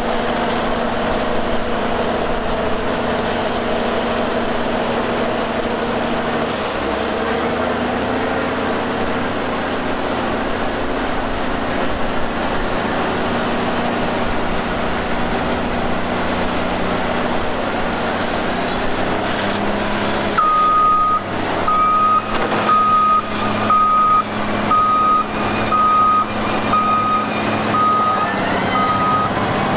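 Diesel engine of heavy tracked earthmoving machinery running steadily. About two-thirds of the way through, a reversing alarm starts beeping about once a second, with irregular knocks and rattles.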